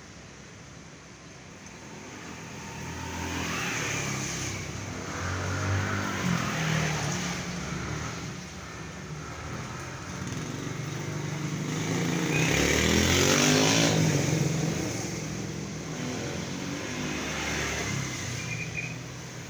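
Road traffic: motor vehicles passing one after another over a steady low rumble, the loudest pass about two-thirds of the way through.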